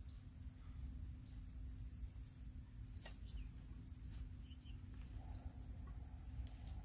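Faint outdoor ambience: a steady low rumble with a few short, high bird chirps, and one sharp click about three seconds in.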